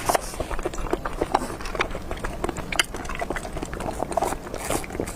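Close-miked eating sounds: wet chewing and mouth smacks with many small irregular clicks.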